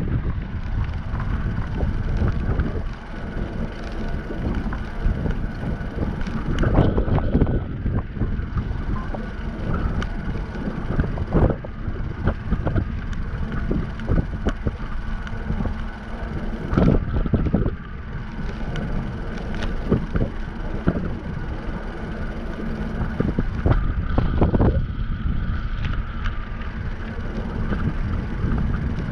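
Wind rushing over the microphone of a bicycle-mounted camera while riding, with low road rumble and frequent short knocks from the bike over the street surface.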